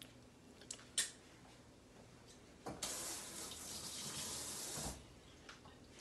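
A light click about a second in, then water running from a tap for about two seconds before it stops.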